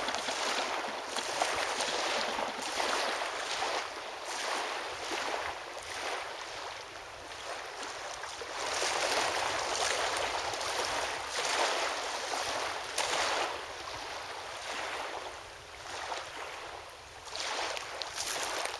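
Small waves washing at the shore, with wind: a hiss that swells and fades every second or two.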